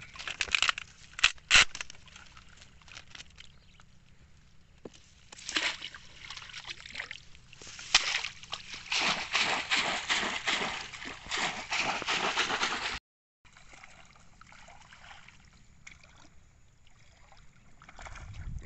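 Shallow floodwater sloshing and splashing as a wire-mesh fish trap is worked in the water, with two sharp knocks about a second and a half in. The heaviest splashing runs from about eight to thirteen seconds, then cuts off briefly and fainter trickling follows.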